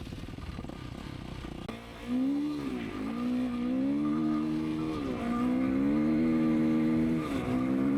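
Motorcycle engine pulling away: a low rumble for about two seconds, then accelerating hard. The pitch climbs and falls back sharply three times as it shifts up through the gears.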